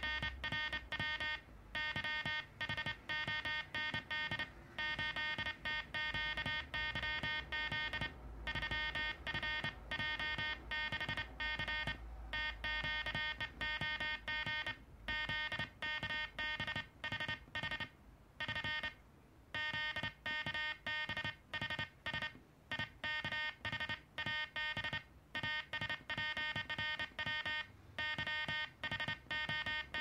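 Morse code sent on a Soviet KDM-2 sideswiper (cootie) key: a buzzy sidetone keyed on and off in quick dots and dashes, pausing briefly a little past the middle.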